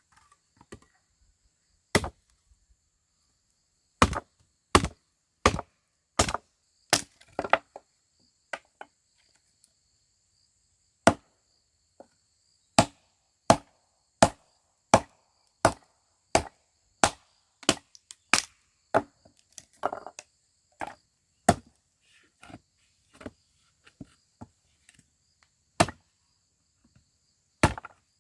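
A blade chopping into wood in a steady series of sharp strikes, about one to one and a half a second, with a short pause near the end.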